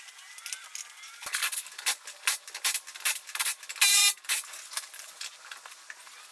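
Metal clinks and knocks as the truck's lug nuts and front wheel are taken off, with a short buzzing rattle about four seconds in.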